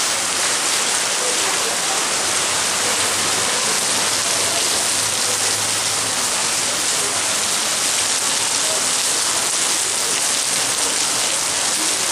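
Heavy rain falling steadily: a dense, even hiss of downpour.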